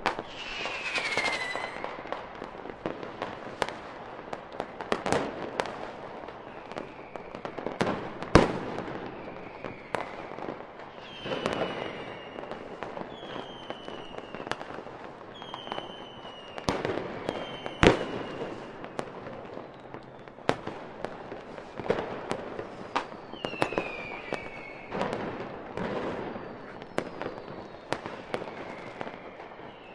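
Fireworks display: a continuous run of bangs and crackling bursts, with two sharp reports standing out about eight and eighteen seconds in, and short whistles falling in pitch going off between them again and again.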